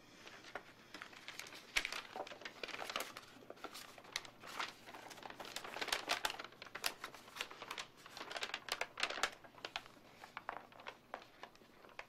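A folded sheet of printer paper crinkling and rustling as it is handled and opened out by hand, in many irregular short crackles that die away at the end.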